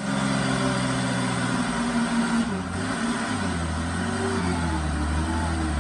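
A motor engine running steadily, its note shifting lower about halfway through, then cutting off suddenly.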